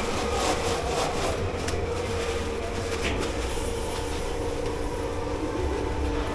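Steady machine drone of a commercial kitchen dish pit, with a low rumble and a held hum, and a few light knocks in the first few seconds.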